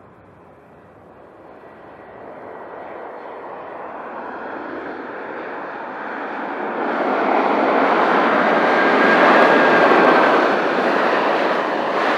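Wizz Air Airbus A321 jet airliner passing on its landing: the engine noise swells steadily from faint to loud over several seconds, with a thin steady whine, loudest about eight to ten seconds in and easing a little near the end.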